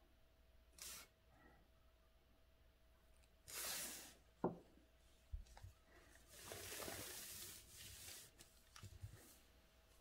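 Quiet handling at a calligraphy desk: a few short rustles and soft knocks, then a longer rustle about six seconds in as the paper is slid along to a fresh stretch.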